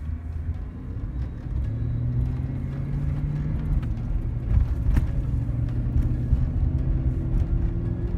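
Worn wheel bearing on a Chevrolet Avalanche humming while the truck rolls at low speed: a low drone that grows louder about two seconds in and creeps up in pitch near the end, the classic sign of a failing wheel bearing.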